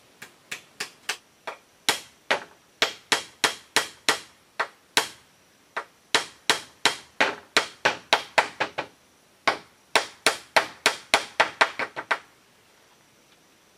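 Hammer blows on split-bamboo roofing laid over a pole frame: a fast series of sharp knocks, about two or three a second, with short pauses about five and nine seconds in, stopping about twelve seconds in.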